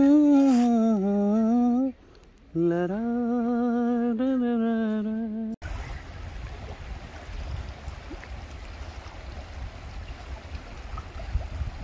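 A voice humming a tune in two long held phrases with a slight waver. About five and a half seconds in it cuts off abruptly to a steady rushing of the Ganges river's flowing water.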